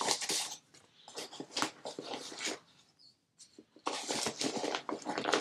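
A package being opened by hand: irregular bursts of tearing and crinkling packaging, with a short pause about three seconds in.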